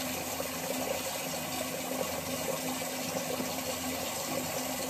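Bathroom tap running: a steady, even rush of water, with a faint steady hum under it.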